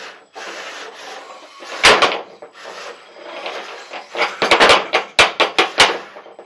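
Small combat robots knocking and clattering against each other and the arena: one sharp knock just under two seconds in, then a quick run of knocks about four and a half seconds in, over a steady background hiss.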